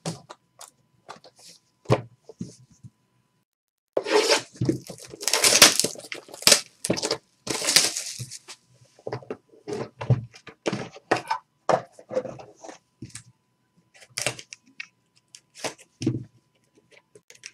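Hands unwrapping and opening a sealed trading card box: a long stretch of plastic wrap ripping and crinkling about four to eight seconds in, the loudest part, among scattered knocks and clicks of cardboard boxes being set down and handled.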